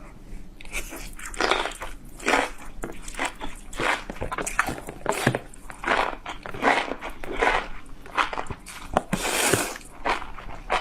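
Close-miked chewing and biting of spicy enoki mushrooms: a run of short, wet, crunchy mouth sounds about once or twice a second.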